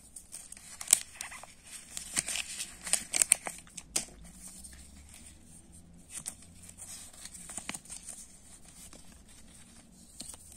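Crinkling and rustling of thin paper and plastic wrappers from a Kinder Joy egg capsule as hands unfold and handle them, with a few sharp clicks, busiest in the first four seconds and quieter after.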